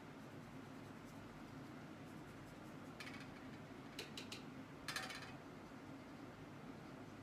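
A paintbrush working against watercolour paper and a pan watercolour palette over faint room hum: a short brushing sound about three seconds in, three quick light taps around four seconds, and a louder brief scrub just before five seconds as the brush picks up paint from the pans.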